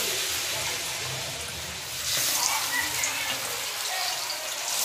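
Spice-coated slices of ash gourd sizzling as they shallow-fry in hot oil in a steel wok. The sizzle grows louder about two seconds in, as a second slice goes into the oil.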